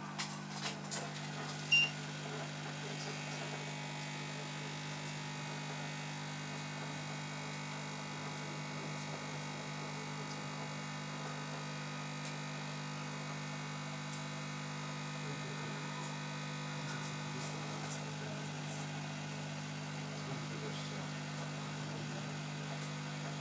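Hot air rework station running with a steady hum from its blower while its nozzle preheats a laptop's display panel. A few light clicks in the first two seconds, the sharpest about two seconds in.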